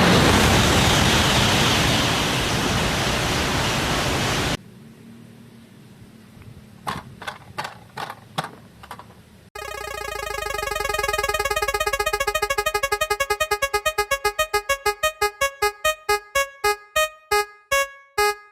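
Electronic sound effects. A loud rushing whoosh runs for about four and a half seconds and cuts off suddenly, a few sharp clicks follow, and then a pitched synthesizer-like tone repeats in pulses that speed up steadily toward the end.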